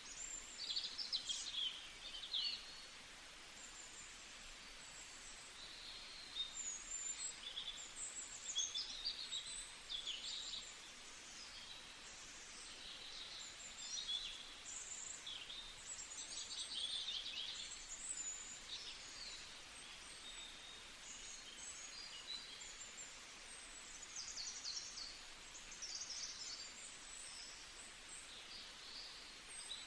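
Several songbirds chirping and singing in quick, overlapping calls and trills over a steady background hiss.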